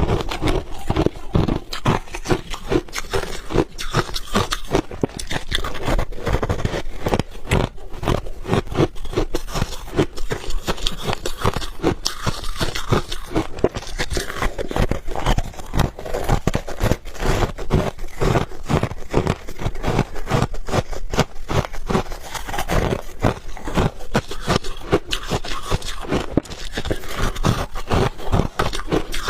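Close-up chewing of refrozen ice balls: a dense, continuous run of sharp crunches and cracks as the ice is bitten and ground between the teeth.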